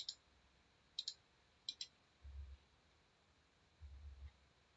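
Faint computer mouse clicks: three short clicks in the first two seconds. Two low, dull thumps follow in the second half.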